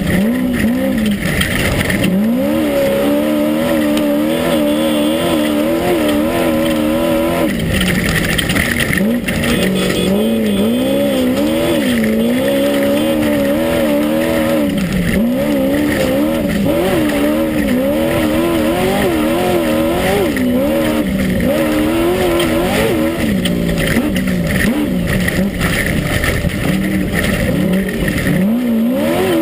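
Class 1 unlimited off-road race buggy's engine heard from inside the car at race pace, its revs rising and falling over and over as the throttle is worked, over a steady noisy rush.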